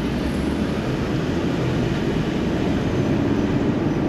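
Steady engine and road noise of a car driving through city traffic, heard from inside the car.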